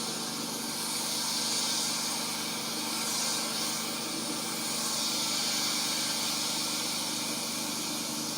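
Steady hiss of water spraying from a pressure washer's spray gun, with water run through before the engine is started to purge air from the hoses and fill the pump.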